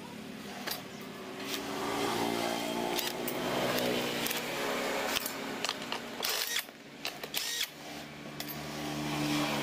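Cordless drill-driver whirring in runs as it backs screws out of a chainsaw's housing, its pitch rising and falling. A few sharp clicks and knocks of parts being handled follow, then another short run of the driver near the end.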